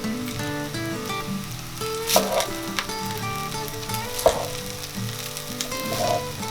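Cooked rice sizzling in hot oil and spices in a pan as it is stirred, with sharp knocks of the spoon against the pan about two and about four seconds in.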